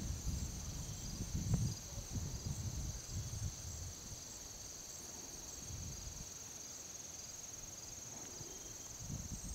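Crickets in a grassy field trilling in a steady, high-pitched chorus. Wind gusts rumble on the microphone through the first few seconds and again near the end.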